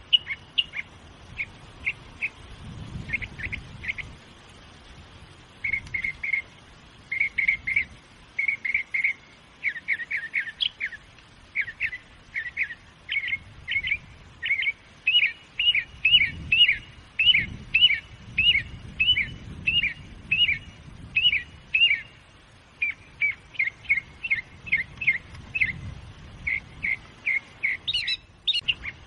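A songbird singing: a long run of short, downward-slurred chirps, two or three a second, in groups with short pauses between them, and a higher, sharper call near the end.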